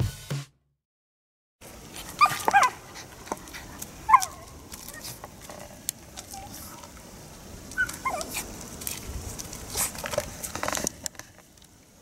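A feist dog treeing a squirrel, giving a handful of short, high, pitch-bending yelps and whines at the base of the tree, with leaves rustling under her paws.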